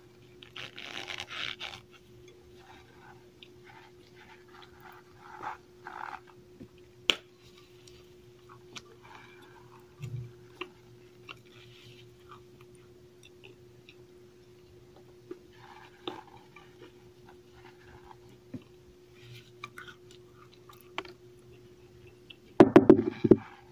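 Cornstarch chunks being bitten and chewed: scattered soft, powdery crunches with pauses between them. The loudest burst of crunching comes near the end.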